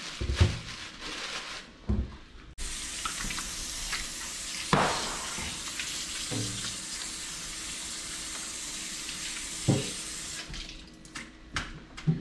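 Kitchen faucet running into a stainless steel sink while hands are rinsed under it. The water starts suddenly about two and a half seconds in and stops shortly before the end, with a few knocks around it.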